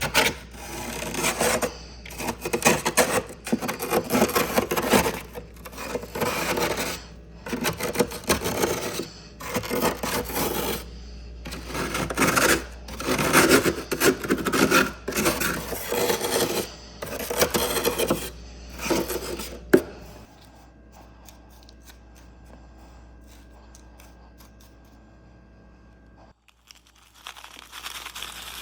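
Repeated crunching of soft, powdery humidifier frost, in bursts of about a second each. The crunching stops about two-thirds of the way through, leaving a low hum, and starts again after a break near the end.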